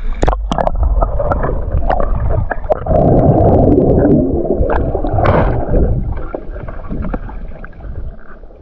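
Water splashing and sloshing close to the microphone as a swimmer moves through a pool. There are a few sharp splashes near the start, a dense stretch of splashing from about three seconds in, then quieter lapping.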